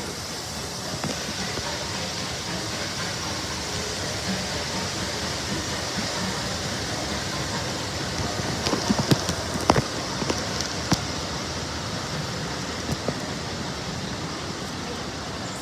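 Steady hiss of steam from a standing LMS Jubilee class steam locomotive, with a few sharp metallic clicks and knocks about nine to eleven seconds in.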